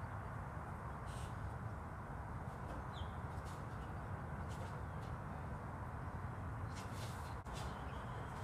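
Steady low outdoor background rumble, with a brief faint bird chirp about three seconds in.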